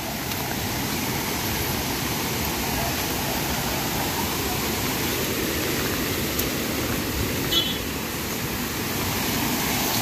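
Steady rush of a waterfall pouring down over rocks.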